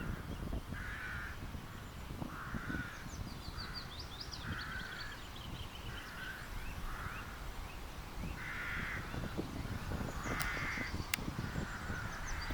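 A bird calling over and over, about once a second, each call short, harsh and hoarse, with a fainter high twittering from another bird partway through. A low rumble of wind on the microphone runs underneath.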